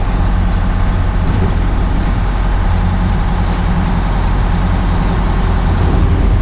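Semi-truck cruising at highway speed, heard from inside the cab: a steady low diesel engine drone mixed with tyre and road noise.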